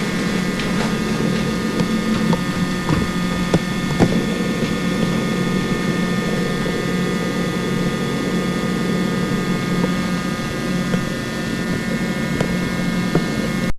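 Steady electrical hum and whine with a stack of fixed tones and a few faint clicks scattered through it. It stops abruptly near the end.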